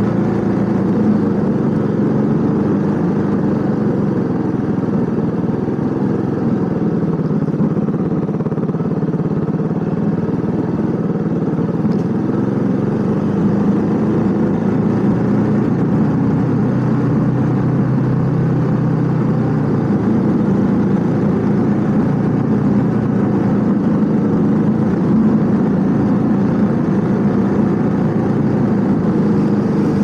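Honda CB400SS single-cylinder engine running under way, heard from on the bike over wind and road noise. The engine note drops about six seconds in, holds lower for a stretch, then rises again around twenty seconds in.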